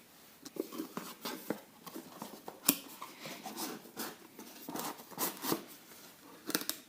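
Cardboard packaging and small parts being handled: irregular clicks, taps and rustles, with one sharper knock a little under three seconds in.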